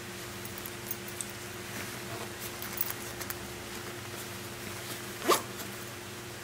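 Backpack zipper, on a Pacsafe Slingsafe LX500, pulled in one quick stroke about five seconds in. It is the loudest sound and follows a few light clicks and rustles of handling, over a steady low hum.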